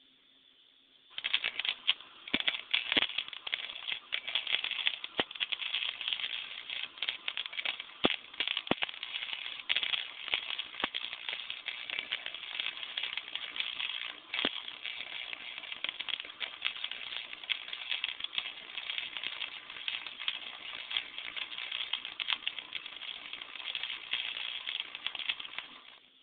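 Wire-feed welder arc crackling steadily with frequent sharp pops while a bead is laid. It starts about a second in and cuts off just before the end.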